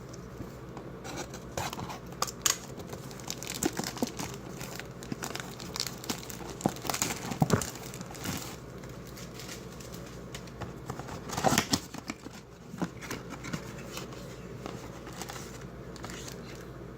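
Packaging crinkling and rustling as a cardboard mystery box is opened and its contents handled, with some tearing and irregular crackles, a few louder ones around the middle.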